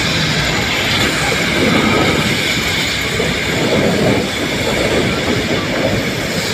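Metre-gauge passenger train running on a curve, heard from inside a carriage: a steady rumble of wheels and running gear on the rails, with a faint, steady high wheel squeal.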